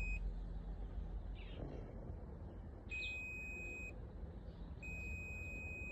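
Digital multimeter's continuity buzzer sounding a steady high-pitched beep that cuts out just after the start, comes back for about a second near the middle, and sounds again near the end as the probes make and lose contact. The beep shows continuity through the switch: it is switched on and conducting.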